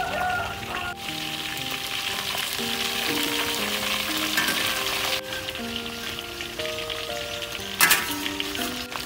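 Whole giant gourami deep-frying in a wok of hot oil, sizzling steadily as it is turned with chopsticks, with one loud sharp clack near the end.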